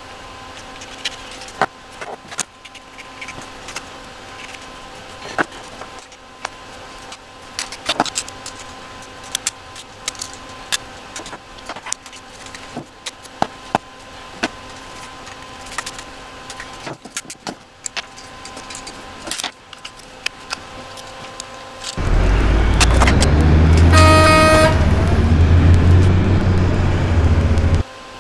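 Small clicks and snaps of plastic push-button switch bodies and contact blocks being handled and fitted into a control panel. About 22 seconds in, a loud low rumble starts suddenly, with a short horn-like toot about two seconds later, and it cuts off abruptly near the end.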